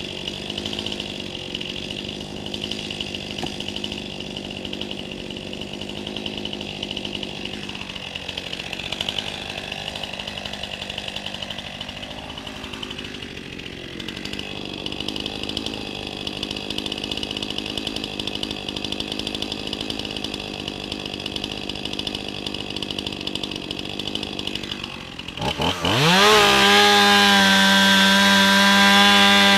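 Chainsaw running steadily at low speed, then revved up sharply about 26 seconds in and held at high speed.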